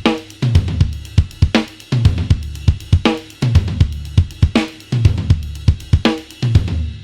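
Sampled acoustic drum kit from EZdrummer 3's Into the Dark expansion playing a steady dark-rock groove of kick, snare and cymbals, with a big ringing hit about every second and a half. The beat stops right at the end.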